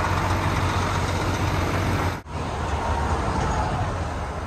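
Steady low hum of coach bus engines with road noise. A brief dropout about two seconds in.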